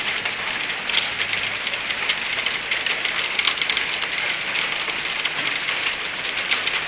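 Hailstorm: hailstones falling on the yard, roofs and parked cars, a steady dense hiss made of many small ticks.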